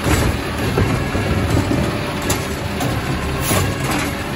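Peterbilt 320 side-loading garbage truck's diesel engine running steadily while its automated arm lowers an emptied cart to the curb, with a sharp clank right at the start and several lighter metal knocks from the arm and cart.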